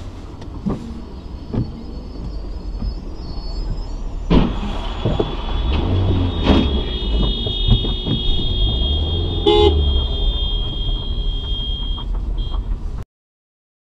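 Car traffic on a wet road with steady engine and road rumble, sharp knocks a little after four seconds and about six and a half seconds in as the cars collide, then a steady high-pitched tone lasting several seconds. A short car-horn blast comes about nine and a half seconds in, and the sound cuts off near the end.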